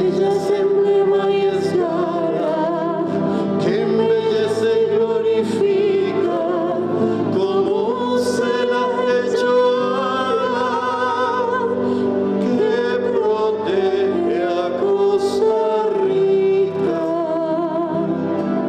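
A live acoustic song: a woman singing with vibrato, accompanied by acoustic guitar and flute.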